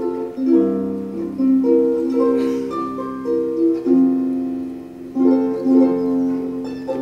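Instrumental music on a plucked string instrument, several notes ringing together in a slow, flowing phrase.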